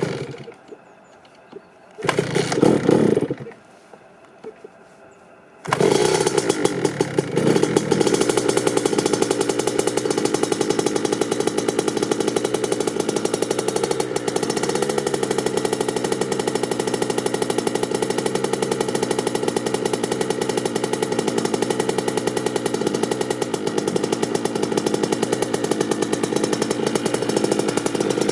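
Kawasaki KX65's 65 cc single-cylinder two-stroke engine being cold-started: a brief burst of running about two seconds in that dies away, then about six seconds in it catches and keeps running steadily with a fast, buzzy beat.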